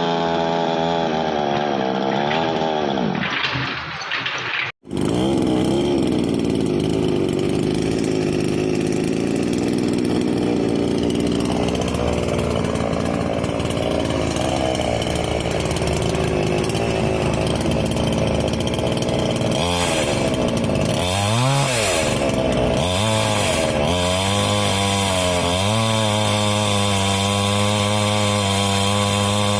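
Daewoo two-stroke chainsaw engine running, mostly steady, with a momentary break about five seconds in and a few quick rev-ups and drops in pitch a bit past the middle before settling into a steady, slightly higher run.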